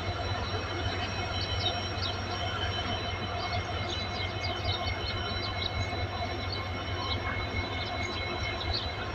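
A heavy engine running steadily: a low rumble with a thin, steady high whine over it, and short high chirps scattered through.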